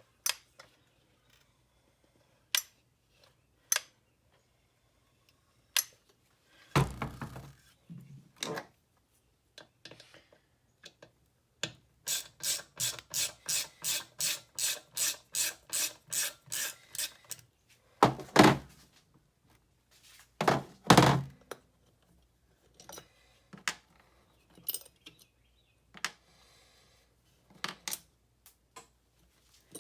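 Hand tools and parts being handled on a workbench: scattered knocks and clicks, three heavier thunks, and in the middle a run of about fifteen even clicks, roughly three a second.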